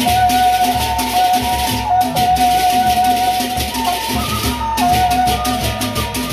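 Sasak gendang beleq gamelan playing: a dense, shimmering wash of clashing brass hand cymbals over large barrel drums, with an even pulse of about two strokes a second and a single held melody line stepping between a few notes above.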